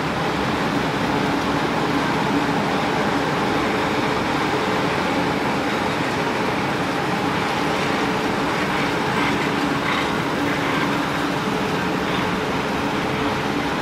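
Steady din of a wire rod rolling mill in operation: machinery running with a constant hum, and a few faint clicks about two-thirds of the way through.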